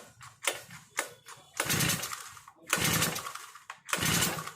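Recoil starter of an Aspee Turbotech 4-stroke brush cutter pulled three times in quick succession, each pull a rasping whir of the cord and cranking engine about a second long, after two short clicks. The engine cranks without firing: the new machine won't start.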